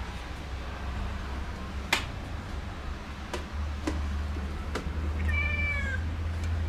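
Domestic tabby-and-white cat gives one short meow, falling slightly in pitch, about five seconds in, over a low steady rumble and a few soft clicks.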